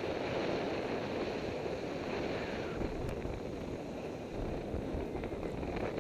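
Wind rushing over the microphone of a camera carried by a moving skier, mixed with the steady hiss of skis sliding over snow.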